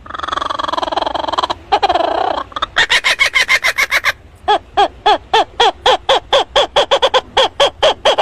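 A bird calling: two drawn-out calls, then a long rapid run of short repeated notes, each rising and falling in pitch, at about five a second.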